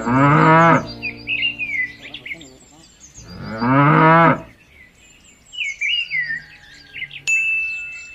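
Cow mooing twice, two short calls about three seconds apart, with small birds chirping between and after them.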